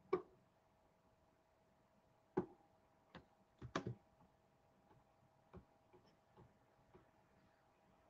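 Scattered computer keyboard and mouse clicks, about eight sharp taps with gaps of a second or more between them, as a chat link is sent. Under them lies a faint steady hum.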